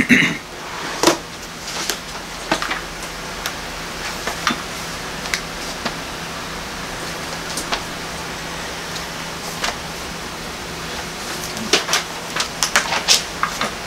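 Pages of a book being handled and turned, with scattered light clicks and rustles and a quicker run of them near the end, over a steady room hum.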